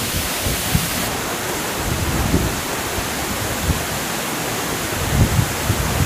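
Waterfall rushing: a steady, dense hiss of water falling over rock into a plunge pool, with a few brief low thumps, the strongest about five seconds in.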